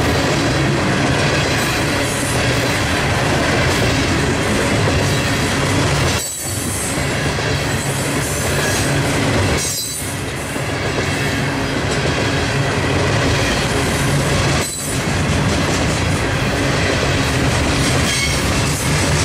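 Herzog ballast hopper cars of a freight train rolling past close by: continuous loud wheel-on-rail noise that dips briefly three times.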